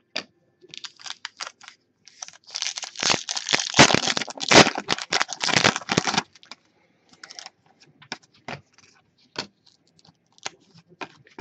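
Plastic trading-card pack wrapper crinkling as the pack is opened, in a dense run of crackles lasting a few seconds. After that come scattered light clicks as the cards are handled.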